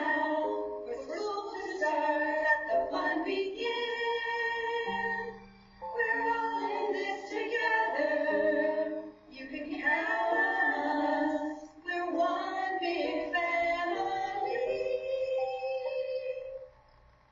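Women singing a song over backing music, in several phrases with short breaks, stopping near the end.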